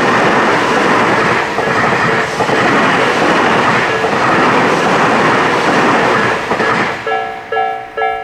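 A Tobu Isesaki Line train passing over a level crossing, its wheels clattering rhythmically over the rail joints for about seven seconds. As the train clears, the crossing's electronic warning bells ring out plainly, about three strokes a second; the crossing has two alarms of different tones, a Nikko-type and a 'pon-pon' Tojo-type, ringing in step.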